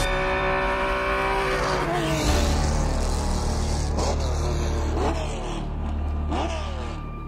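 Alfa Romeo 179C Formula 1 car's V12 engine at high revs. Its note falls in pitch about two seconds in, then several quick throttle blips follow, each rising and falling, about a second apart.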